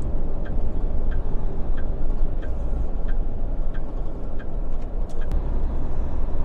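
Inside a Hino truck cab at road speed: steady engine and road drone, with the turn-signal indicator ticking about three times every two seconds while signalling a lane change. The ticking stops about five seconds in.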